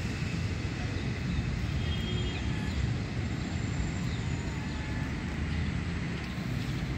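Steady low outdoor rumble, with a few faint high chirps above it.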